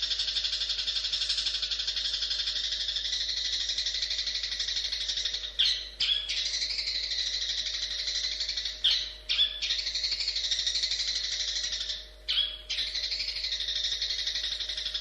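Long-tailed shrike (cendet) singing a long, rapid, chattering song, broken a few times by short sharp call notes, about six, nine and twelve seconds in.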